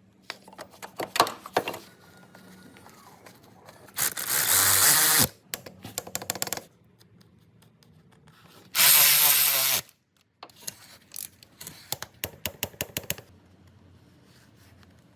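A power tool runs in two bursts of about a second each, each winding down with a falling tone. Between and after them come sharp clicks and knocks of tools being handled, with a quick run of clicks near the end.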